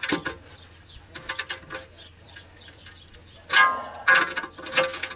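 Click-type torque wrench ratcheting and clicking as bolts are tightened to 19 foot-pounds: a few sharp metallic clicks that ring briefly, the loudest about three and a half seconds in.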